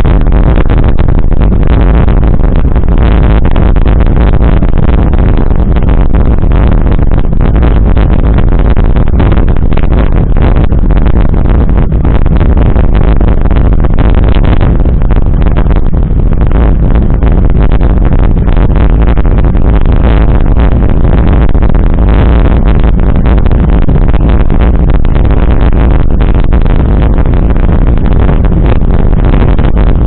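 Steady loud rumble of wind buffeting the camera microphone, with tyre noise from a mountain bike rolling over a gravel dirt road.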